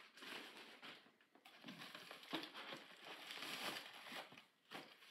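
Packaging crinkling and rustling in hand as a plush toy is unwrapped from a paper wrap and plastic mailer bag, in irregular bursts.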